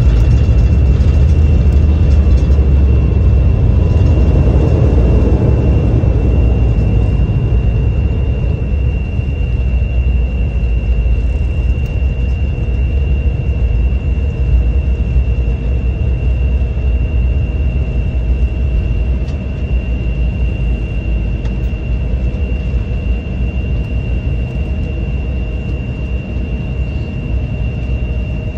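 Cabin noise of an Embraer 175 regional jet rolling out after touchdown: a loud low rumble with a steady high whine, and a second whine falling in pitch over the first few seconds. The rumble eases gradually as the jet slows toward taxi speed.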